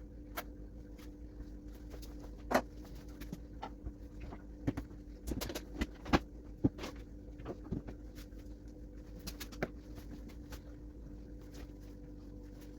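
Scattered light knocks and clicks of cabinet doors and fronts being handled and wiped with a cloth, the loudest about two and a half and six seconds in, over a steady low hum.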